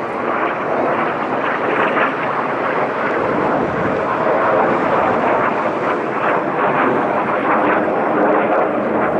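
Jet aircraft engine noise from aerobatic display jets: a steady, dense rushing sound that holds at a high level without a break.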